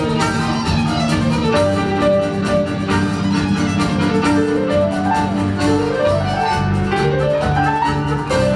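A small instrumental ensemble of grand piano, keyboard, drum kit, violins, accordion and winds playing. Quick runs of notes sweep down and up several times over a steady accompaniment.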